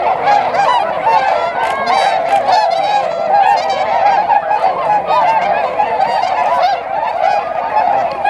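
A large flock of swans calling all at once: a continuous chorus of many overlapping honking calls.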